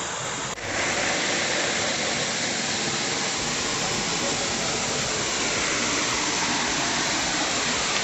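Steady rush of a small waterfall pouring into a rock pool: an even hiss of falling and splashing water. It briefly dips and then steps up louder about half a second in.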